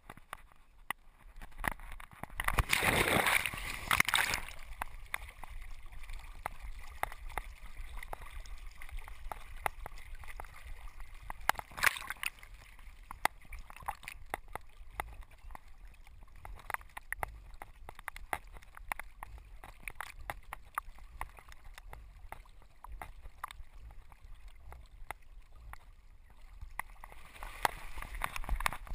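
A black Labrador retriever leaps into a creek with a loud splash about three seconds in, then swims, water sloshing and gurgling around the camera strapped to its back. Near the end the water noise grows louder again as the dog climbs out with water streaming off it.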